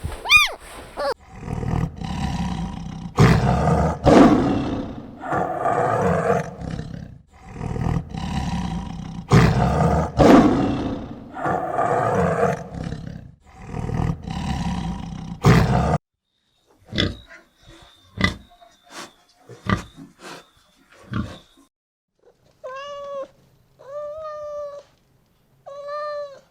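An animal calling over and over in loud, harsh calls of about a second each, then a handful of sharp clicks, and near the end three short, higher-pitched calls.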